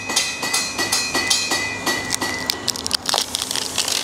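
Hammer blows on steel at a blacksmith's anvil, repeated strikes about two to three a second, each with a ringing tone. A brief hiss comes in about three seconds in.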